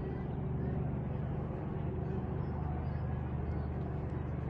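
Light aircraft's piston engine running steadily, heard from inside the cockpit.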